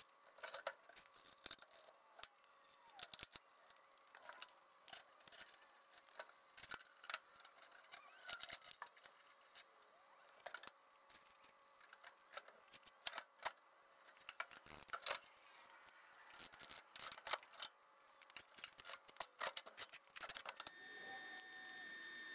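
Scattered metallic clicks, clinks and knocks of tools and parts as a rear differential is unbolted and lowered out from under a car's four-link rear suspension. Near the end the clicking stops and a steady hiss with a thin whine begins.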